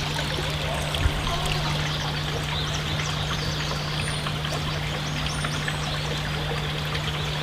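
Steady rush of running water, with a constant low hum beneath it.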